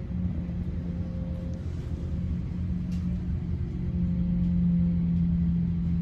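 Steady low hum and rumble of an Airbus A350-900 cabin parked at the gate during boarding, with a droning tone that gets a little louder about four seconds in.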